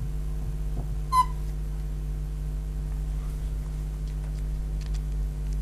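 Steady low electrical mains hum with a buzzy edge, plus one brief high squeak about a second in and a few faint ticks near the end.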